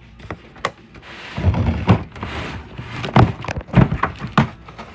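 Handling noise on the recording phone: a low rubbing rumble that starts about a second and a half in, with a run of sharp knocks and thumps close to the microphone.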